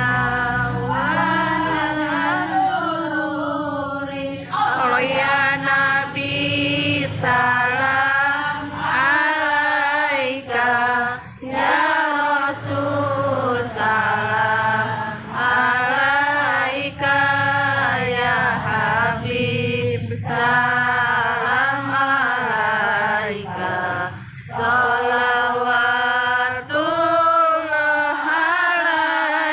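Several voices chanting together in long sung phrases with short breaks between them, over a steady low hum.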